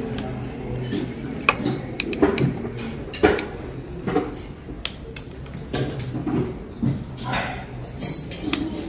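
A spoon clinking and scraping against a glass dessert jar as a layered dessert is stirred and scooped, in irregular taps.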